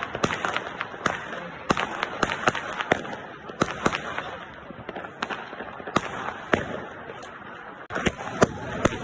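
Fireworks going off in a rapid, irregular string of sharp bangs and cracks over a continuous crackle.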